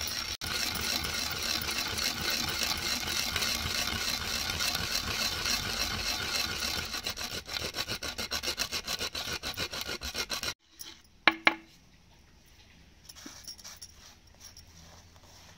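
Wooden pestle pounding and grinding roasted fenugreek and mustard seeds in a stone mortar: a dense gritty crunching that turns into a quick rhythm of about four strokes a second, then stops abruptly about ten and a half seconds in. After it come two sharp clicks and faint scraping as the powder is gathered by hand.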